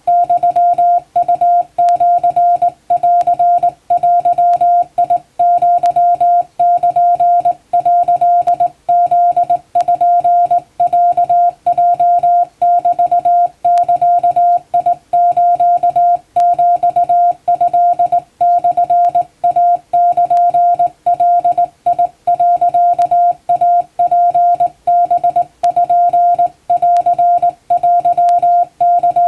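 Hand-keyed Wabun (Japanese) Morse code sent as a single steady beep tone, switched on and off in quick dots and dashes with short pauses between characters.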